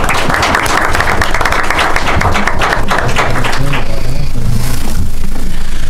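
Small audience applauding, dying away after about four seconds.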